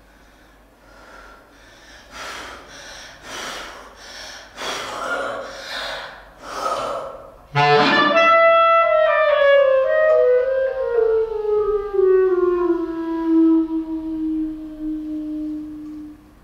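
Clarinet in free improvisation: a series of breathy puffs of air growing louder, then about halfway through a sudden loud note that swoops up and slides slowly downward in small steps until it fades out near the end.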